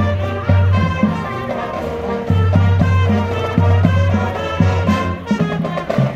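High school marching band playing while it marches: a brass tune over loud held low bass notes, with drum hits.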